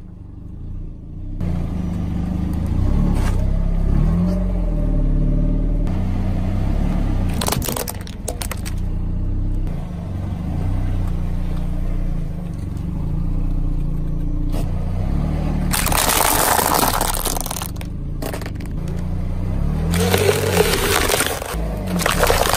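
Car engine running as the car rolls slowly, its tyre crushing a series of objects: sharp cracks and crunches of plastic, a noisy burst lasting over a second about two-thirds through, and more crunching near the end.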